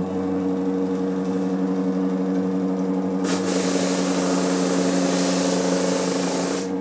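Essex Silverline drum sander's electric motor starting up in the rocked-back idle position and running with a steady hum. About three seconds in, a loud hiss joins as the spinning drum is lowered onto plywood and sands it, and it stops shortly before the end while the motor runs on.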